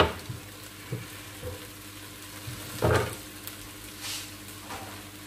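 Raw diced chicken being swept together by hand on a wooden chopping board: soft wet slaps of the meat, with a sharp knock at the start, a smaller one about a second in and a heavier thud near three seconds in, over a steady low hum.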